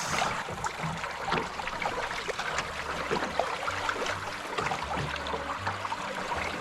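Water rushing and splashing along the hulls of a small sailing catamaran under way, with many small irregular splashes.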